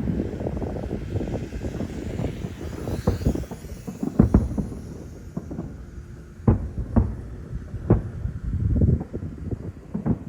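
Aerial fireworks shells bursting: a run of sharp booms, two close together about four seconds in and three more between six and eight seconds, over a continuous low rumble.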